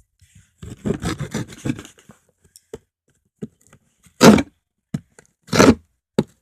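Small multitool saw blade sawing and scraping at a cardboard shoebox. First comes a quick run of short rasping strokes, then, after a pause, two louder single strokes with small clicks between. The blade is unsharpened out of the box and cuts poorly.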